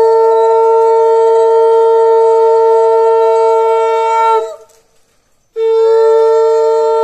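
Conch shell (shankha) blown in long steady blasts, as at Hindu wedding rites. The first blast rises in pitch as it starts, holds for about four and a half seconds, and breaks off. After about a second's gap a second blast starts near the end.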